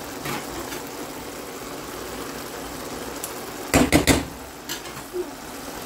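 Rice pulao bubbling steadily in a pot as its last water cooks off, with a quick cluster of sharp clicks from a slotted spatula knocking against the pot a little under four seconds in.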